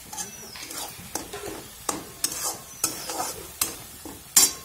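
Metal spatula scraping and stirring onion-garlic-ginger masala paste as it fries in oil in a kadai, over a low sizzle. The spatula scrapes the pan roughly every half second, the loudest scrape near the end.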